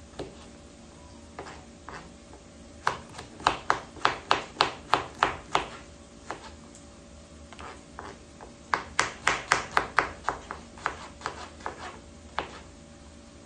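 Kitchen knife chopping garlic cloves on a wooden cutting board: two runs of quick knocks, about three or four a second, with scattered single cuts before, between and after.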